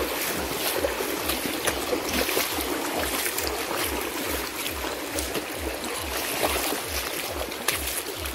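Fast, shallow muddy river rushing over rocks, with feet splashing as people wade through it. Under the water noise runs a steady series of low thumps, about two to three a second.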